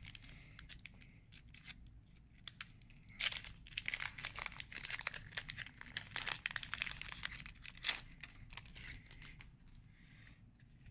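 Foil wrapper of a Pokémon card booster pack crinkling and tearing as it is pulled open by hand, in irregular clusters of sharp crackles.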